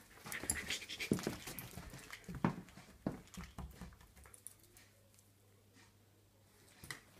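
Small terrier playing with a dangled plush toy: scuffling and several sharp knocks through the first half, growing quieter from about halfway through.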